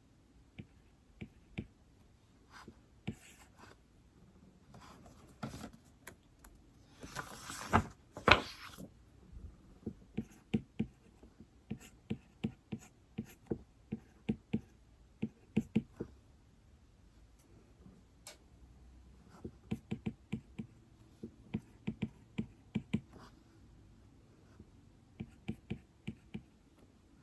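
Stylus tapping and writing on an iPad screen: runs of light, sharp clicks in short bursts, with a louder rustle and two knocks about seven to eight seconds in.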